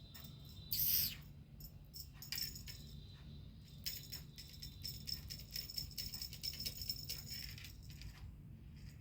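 Light jingling and rattling: many small clicks from about two seconds in until near the end, over a steady low hum, with a brief loud hiss-like rustle about a second in.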